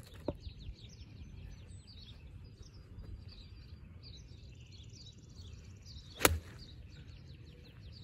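A golf iron strikes a rubber bouncy ball off the tee with one sharp crack about six seconds in. Birds chirp throughout over a steady low outdoor rumble.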